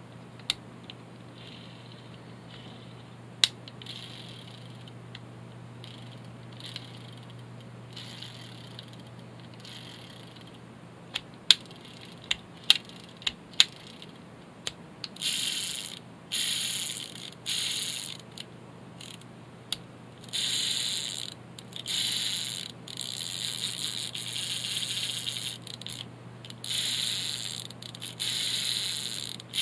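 Small parts of a fishing reel being handled: a few sharp clicks, then from about halfway repeated short rattling bursts, about a second each, over a steady low hum.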